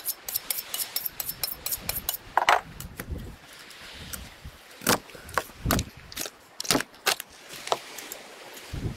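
Two steel knife blades rapidly stroked against each other, a quick run of metallic scrapes about five a second. From about two and a half seconds in, knife work on a wooden cutting board: scattered knocks and scrapes as the blade cuts along a sturgeon head.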